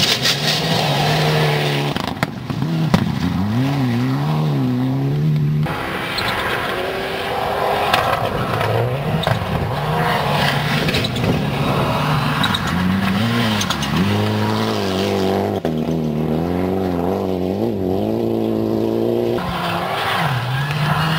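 Mitsubishi Lancer Evolution rally cars driven hard on loose gravel. Their engines rev up and drop back again and again through gear changes and lifts, over the rush of tyres on gravel. The sound breaks off abruptly a few times between passes.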